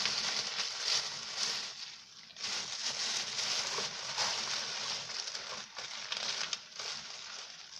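Close rustling, crackling and small knocks of a toy doll and its dress being handled as a child dresses it.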